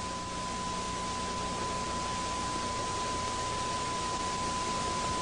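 A steady 1 kHz test tone, unbroken and unchanging, over tape hiss and a faint low hum.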